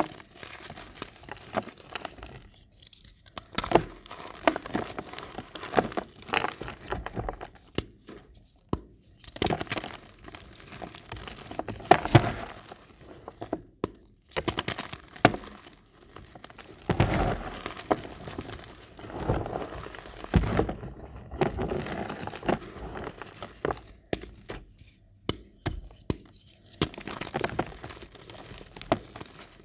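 Reformed gym chalk blocks crushed and crumbled in bare hands: dry crunching and crackling with sharp snaps, in irregular bursts separated by short pauses between squeezes.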